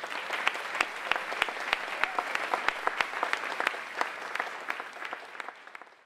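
Audience applauding, dense irregular clapping that fades away toward the end.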